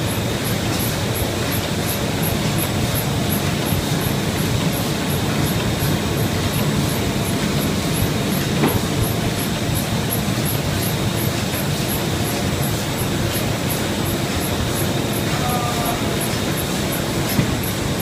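Ding Shung FM-1050 film laminating machine running: a steady mechanical rumble with a faint high whine and a light, even ticking, about two to three ticks a second.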